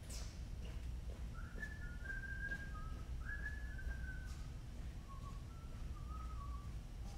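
A person whistling a short tune, a string of sliding notes from about a second in until near the end, faint over a steady low hum.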